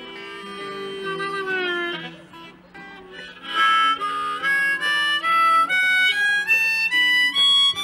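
Harmonica played into a microphone over electric guitar. About three and a half seconds in the harmonica gets louder, with a run of short held notes climbing step by step in pitch.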